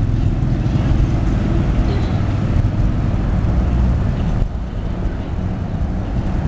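Wind buffeting the microphone: a loud, uneven low rumble that carries on throughout, its hiss thinning slightly about four and a half seconds in.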